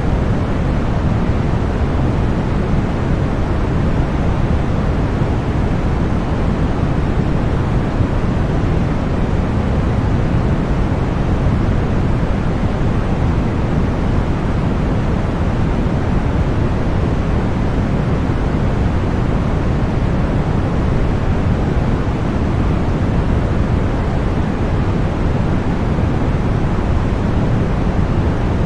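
Continuous white noise for sleep and tinnitus masking: an even, unchanging rushing hiss, weighted toward the low end.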